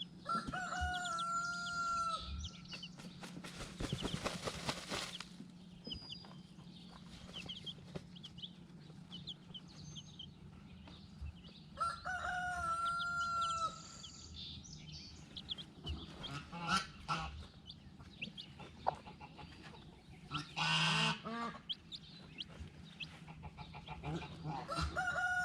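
Rooster crowing twice, each crow a long held call of about two seconds, about a second in and again about twelve seconds in. Between the crows, hens cluck and small high chirps come through, with a brief rushing noise about four seconds in and a loud squawk about twenty-one seconds in.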